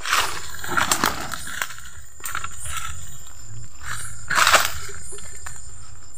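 Dry leaves and forest litter rustling and crunching in several irregular bursts as a bamboo tube trap is handled and pulled at a land crab burrow. The loudest burst comes about four and a half seconds in.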